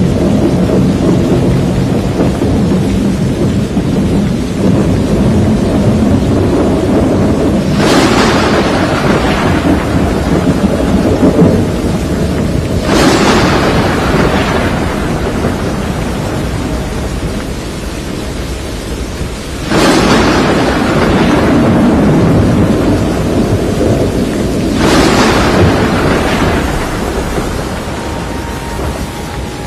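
Thunderstorm: a steady low noise of storm and rain, broken four times by sudden thunderclaps that each fade out over a few seconds.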